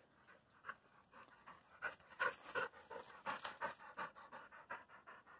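Blue heeler panting hard from exertion after chasing a tennis ball, quick rhythmic breaths at about three or four a second, louder from about two seconds in as the dog comes close: the dog is tired and out of breath.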